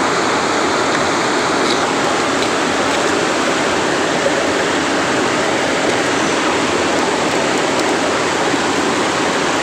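Water of a small waterfall rushing steadily and loudly, an even noise with no change.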